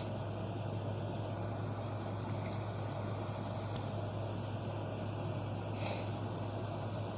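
Steady low hum under a constant background hiss, with a short hissing puff about six seconds in.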